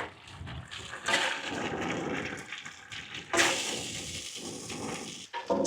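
Sauce sizzling and bubbling in a hot wok, a steady hissing with a louder surge a little past halfway that then dies down.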